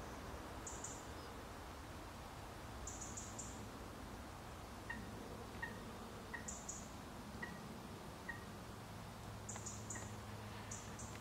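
Small birds calling: short clusters of very high, thin chirps every few seconds, with quieter single pips in between, over faint outdoor background noise.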